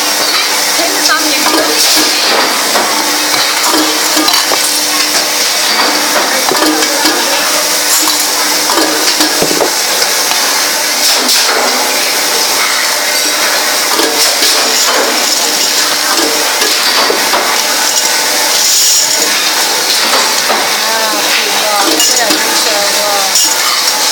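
Riveting machine at work on stainless steel pot lids: a machine hum that comes and goes under constant clinking and clattering of stainless metal parts.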